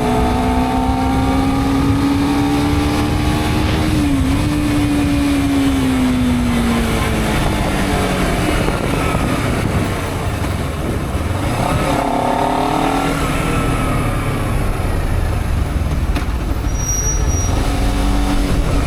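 Honda CBR250RR engine through a newly fitted Akrapovic-style aftermarket exhaust, ridden on the street. The engine note climbs steadily for about four seconds, then falls away as the revs drop, with another short rise and fall about twelve seconds in.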